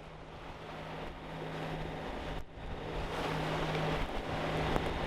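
A sailboat's engine running with a steady low hum under the rush of wind and water, with a brief dip about halfway through.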